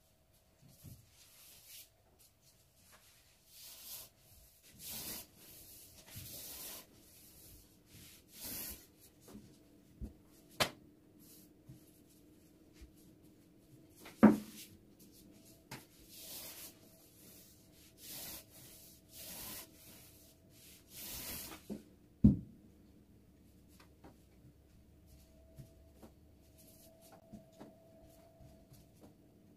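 Long, thin wooden rolling pin (oklava) rolling and sliding over stacked sheets of baklava dough on a floured wooden table, making repeated swishing, rubbing strokes. A few sharp wooden knocks come in between, the loudest about halfway through and again about two-thirds of the way in.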